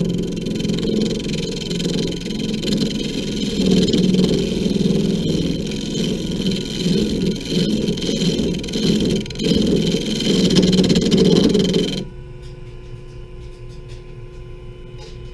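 WEN 3421 mini lathe running, with a turning tool cutting the spinning wood blank: a rough, uneven scraping over the machine's hum. About twelve seconds in the cutting noise stops abruptly, leaving a much quieter steady hum.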